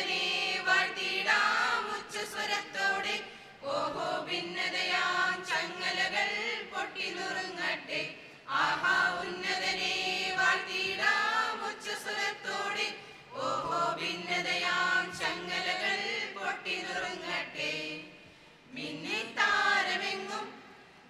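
Mixed choir of men, women and children singing a Christmas carol, in phrases of about four to five seconds with brief breaths between them.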